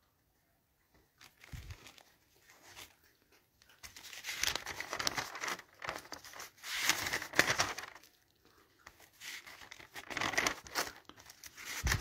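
Paper and plastic packaging rustling and crinkling as it is handled, in several spells a second or two long.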